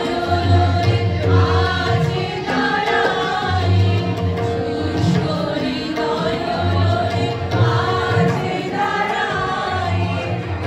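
A group of women singing a song together, accompanied by harmonium and tabla.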